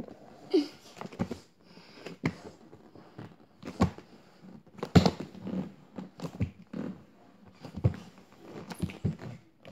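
Irregular knocks and thumps with rustling as a person's hands, feet and legs shift and slide on a wooden floor close to the microphone, working down into a split. A short squeak comes about half a second in.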